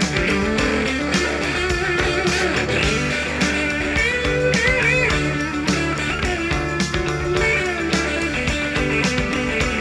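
Southern rock band recording playing an instrumental passage: a lead electric guitar plays bent, wavering notes over rhythm guitars, bass and a steady drum beat.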